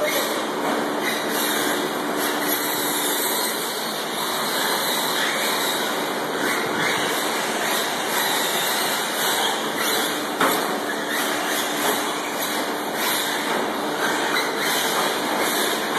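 Radio-controlled 4x4 short course trucks racing on a dirt track: a steady whirring of motors and tyres, with a sharp knock about ten seconds in.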